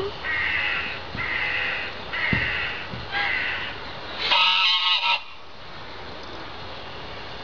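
A bird calling five times in a row, the last call louder and longer than the first four.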